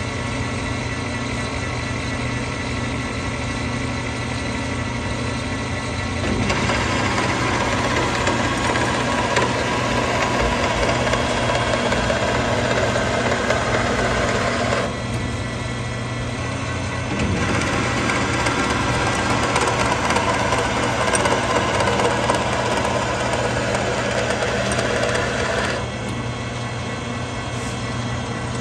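Precision Matthews metal lathe running steadily while single-point threading an Acme lead screw with a carbide insert. The cutting noise swells for two stretches of about eight to nine seconds each, starting about six seconds in and again about seventeen seconds in, over the constant hum of the machine.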